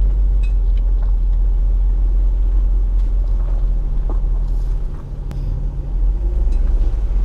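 Car engine running steadily with a heavy low rumble.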